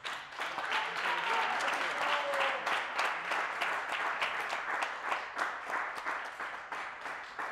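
Audience applauding, a dense patter of many hands clapping that starts suddenly and dies down toward the end.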